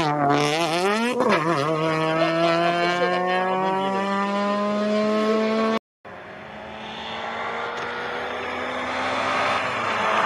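Peugeot 206 rally car's engine going past: it wavers and dips briefly, then pulls hard with a long, slowly rising pitch as the car accelerates away. After an abrupt cut, another rally car's engine approaches, growing louder with a slowly rising pitch.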